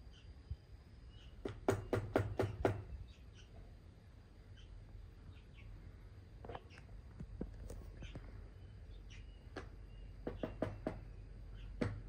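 Great barbet rapping its heavy bill against a hard plastic case: two quick runs of about five or six sharp knocks each, one a couple of seconds in and the other near the end, with a few single taps between them.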